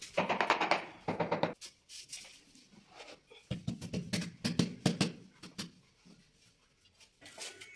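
A wooden hammer handle tapping a ceramic wall tile to bed it into fresh cement mortar. A quick run of knocks comes in the first second and a half. A heavier cluster of knocks and pats follows around the middle, as the tile is pressed flat by hand.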